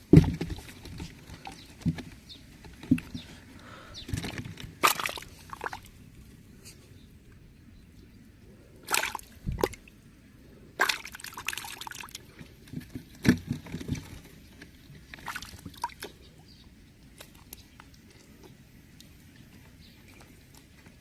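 Water sloshing and splashing in short, irregular bursts a second or few apart, the loudest right at the start and a cluster about halfway through.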